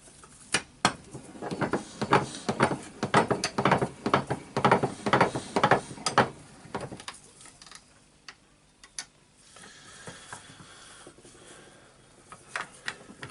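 Quick, irregular metallic clicks and clatters of hand tools and small metal parts being worked on a disassembled orbital sander. They come thick for about the first seven seconds, then only a few scattered clicks near the end.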